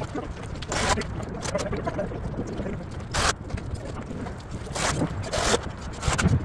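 Wind rumbling on the phone's microphone, with several short bursts of noise from gusts or handling.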